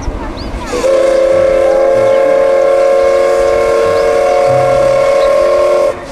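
Steam locomotive whistle giving one long, steady blast of several tones sounding together, lasting about five seconds. It starts about a second in and cuts off just before the end, over the running noise of the train.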